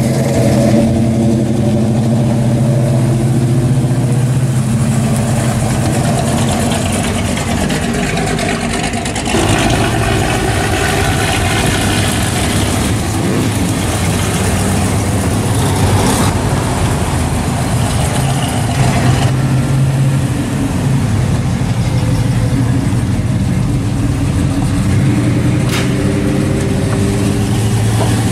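Engines of classic American cars and a pickup driving past one after another, each running and revving lightly as it pulls away.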